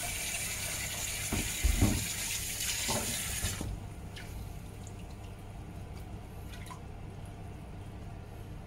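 Kitchen tap running into a stainless-steel sink while fish is rinsed, with a few knocks against the sink, the loudest near two seconds in. The water shuts off about three and a half seconds in, leaving a steady low hum and faint handling clicks.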